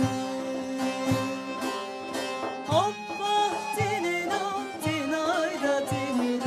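Turkish Yörük folk music: a woman singing a wavering, ornamented melody over a plucked bağlama, with a frame drum striking a steady beat about once or twice a second.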